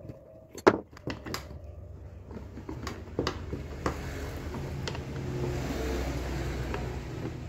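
A few sharp metallic knocks and clicks, the loudest under a second in, over a small electric motor running with a steady hum that grows a little louder from about four seconds in.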